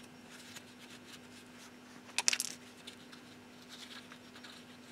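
Light metallic scraping and ticking as a Torx brake-disc retaining bolt is turned out of the wheel hub by hand, with a short sharp metallic clatter about two seconds in.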